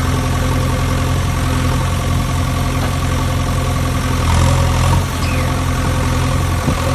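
Tractor engine idling steadily with a low, even engine note that swells slightly about four seconds in.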